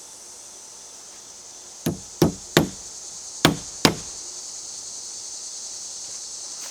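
Hammer driving a nail into a wooden board: five sharp blows in about two seconds, the first one lighter as the nail is started.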